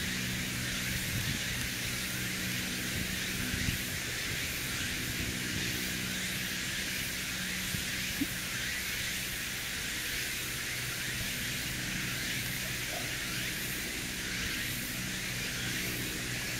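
Steady outdoor background: an even high hiss with a low steady hum underneath, and a faint tick or two.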